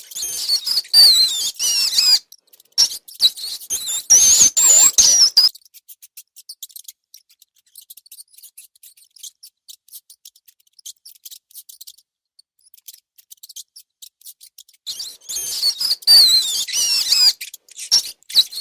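Rats squeaking in quick, high, wavering chirps mixed with scratchy clicks. The squeaking stops about five seconds in, leaving only faint ticking and scratching for about ten seconds, then starts again near the end.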